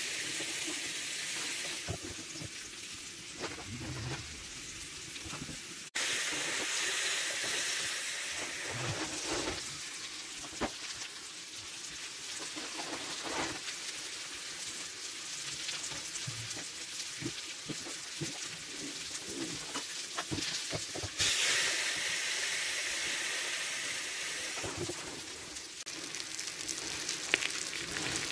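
Ribeye steak frying in an electric waffle maker: a steady sizzling hiss with scattered small pops and crackles of fat and juices. It gets louder suddenly about six seconds in and again about twenty-one seconds in.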